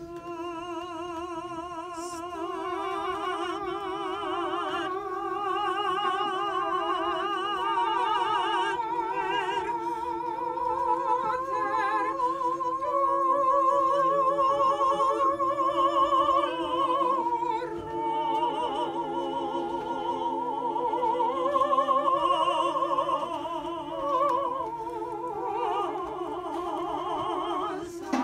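Two women's voices singing an operatic, classical-style duet with wide vibrato, their lines moving against each other, over a steady held low note underneath.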